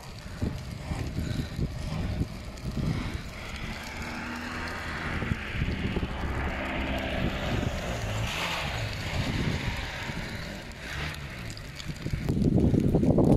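Wind buffeting the microphone, with a vehicle passing on the highway: its hiss swells and fades about halfway through. A stronger gust near the end.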